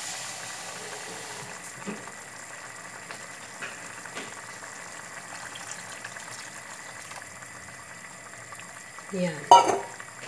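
Water poured from a small steel pot into a hot pan of simmering tomato sauce on a gas burner, over a steady low sizzle. About nine seconds in, a short metal clatter.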